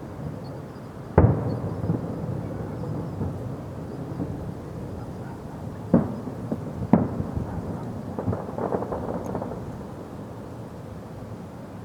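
Fireworks going off: three sharp bangs, about a second in and then around six and seven seconds in, each followed by a rolling rumble. A patch of crackling comes just before nine seconds, over a continuous low rumble.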